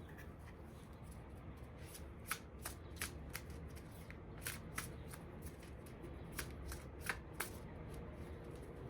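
A deck of reading cards being shuffled by hand, with irregular sharp card snaps and riffles.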